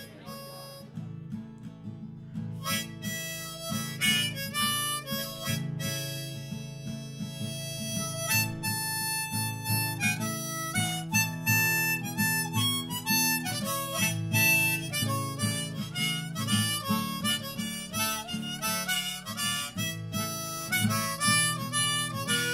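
Instrumental music led by a harmonica over guitar accompaniment, building in loudness over the first few seconds.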